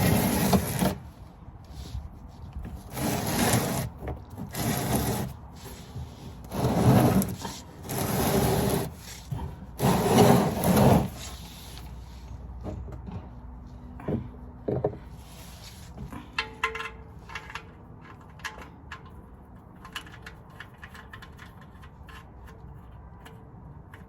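Six loud rubbing or scraping strokes, each about a second long, followed by quieter scattered clicks and taps of work with tools or parts.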